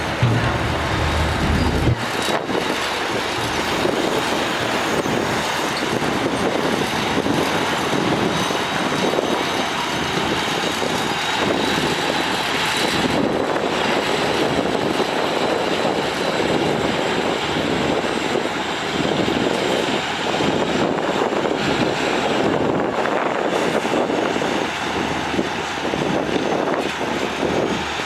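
Heavy diesel earthmoving machinery running under work, a steady dense engine noise with faint high whines. A deep low rumble cuts off about two seconds in.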